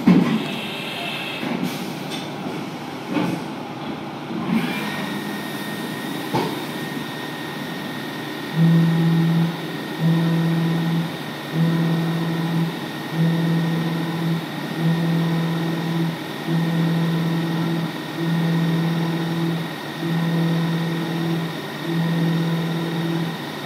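Haas VF-6 CNC milling machine cutting a block of 4140 pre-hard steel under flood coolant, with coolant spray hissing throughout. After a few scattered knocks, a steady high whine comes in about four seconds in. From about eight seconds a low hum swells and drops in regular pulses about every one and a half to two seconds as the cutter works the block.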